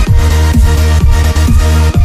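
Electronic dance music with a strong bass and a steady kick-drum beat.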